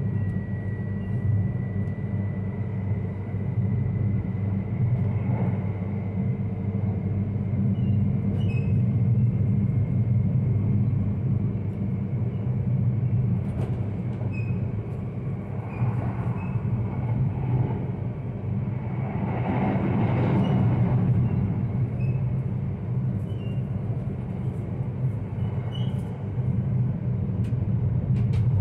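Yamagata Shinkansen Tsubasa train heard from inside the passenger cabin while running at speed: a steady low rumble, with a swell in the running noise about two-thirds of the way through and scattered light clicks.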